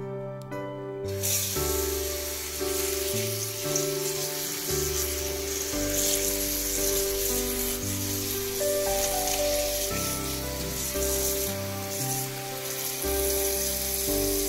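Tap water pouring into a stainless steel bowl of dried seaweed in a sink, a steady hiss that starts about a second in, over background music with held notes.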